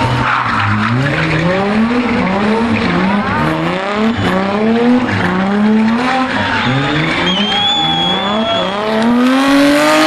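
BMW E30 rally car sliding through donuts. Its engine revs climb and fall back over and over, about once a second, while the tyres squeal, getting louder near the end.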